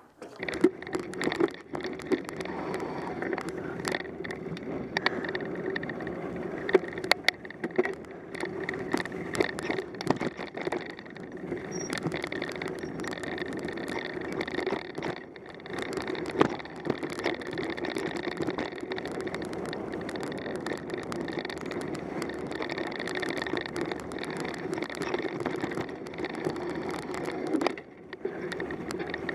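A mountain bike being ridden over a snowy, leaf-covered dirt trail: steady rolling tyre noise with frequent clicks and knocks as the bike rattles over bumps.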